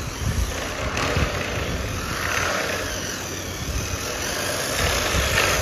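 Small electric motors and plastic gears of toy vehicles running steadily, with wheels rolling on a stone floor, as a toy tractor and a remote-control rock crawler move together joined by a tow rope.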